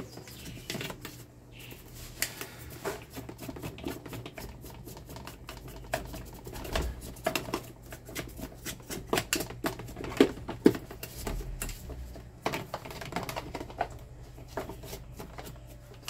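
Stiff paintbrush scrubbing caked dirt off an electric fan's motor housing: quick scratchy bristle strokes with scattered light knocks against the casing, the sharpest about two-thirds of the way in, over a steady low hum.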